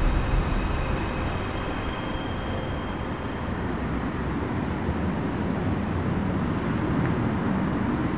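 Steady city traffic noise: a continuous wash of road noise from many cars.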